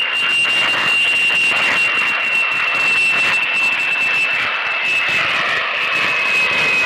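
Jet airliner's engines whining during a low flyby: a high, steady whine that sinks slowly in pitch over a rushing noise.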